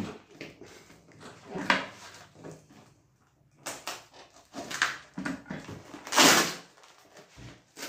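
Plastic parcel wrapping being torn open by hand: irregular crinkling and rustling, with a louder rip about six seconds in.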